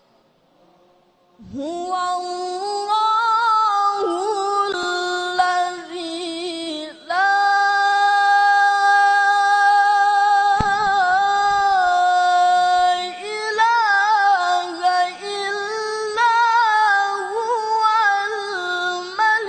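A boy qari reciting the Quran in a high, melodic voice, with long held notes and ornamented turns. It begins after a pause of about a second and a half, and one long note is held steadily through the middle.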